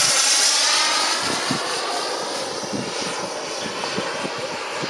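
Turbine engine of a remote-control model jet, a loud rushing roar with a high whine, passing and then fading as the jet moves away.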